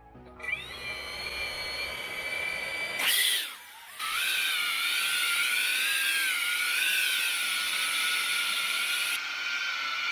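iFlight Green Hornet cinewhoop quad's motors and ducted props whining: a steady high whine as they spin up, a short loud burst about three seconds in, then a louder whine whose pitch wavers up and down as the throttle works for take-off.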